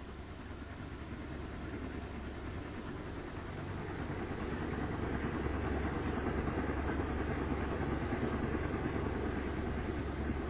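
Steady engine rumble with a low hum and a hiss over it, swelling over the first five seconds and then holding.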